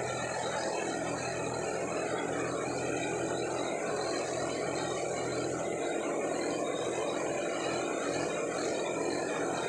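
John Deere 5405 tractor's three-cylinder diesel engine running steadily under load, pulling a disc harrow through dry tilled soil.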